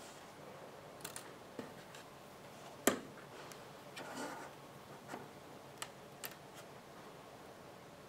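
Scattered small clicks and taps of a side cutter and loose wires being handled on a tabletop, with one sharper click about three seconds in and a brief rustle a second later.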